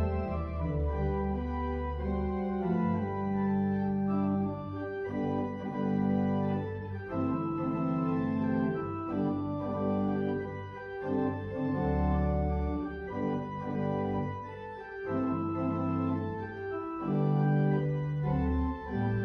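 Organ playing slow, sustained chords that change every second or two over a low bass.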